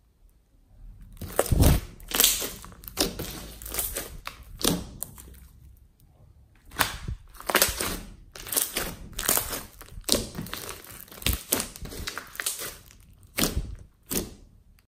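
Thick slime being handled: stretched, folded and squeezed in the hands and pressed inside a plastic bag, giving irregular sticky squishes, pops and crinkles. The sounds start about a second in and stop just before the end.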